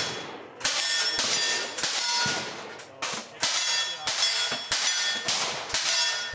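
Pistol fired in quick succession, about eight shots roughly 0.6 s apart with a pause of about a second midway. Each shot has a ringing tail.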